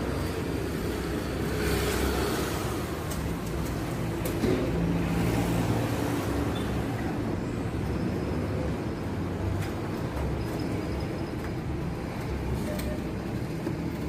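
Steady low background rumble, with a few faint metallic clicks of hand tools working on small suspension bolts.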